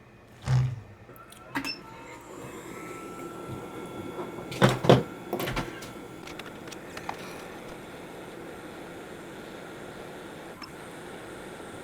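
Steady airflow hiss of a hot air rework station blowing, coming up about two seconds in, with a few sharp knocks and clicks of handling, the loudest a quick pair about five seconds in.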